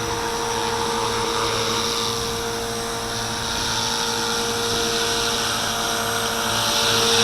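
Walkera V450D01 450-size collective-pitch RC helicopter hovering a few inches off the floor: a steady whine from its electric motor and spinning rotor, getting a little louder near the end.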